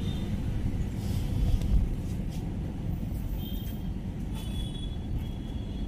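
Outdoor urban ambience: a steady low rumble of traffic with wind buffeting the microphone, and a few faint short high tones.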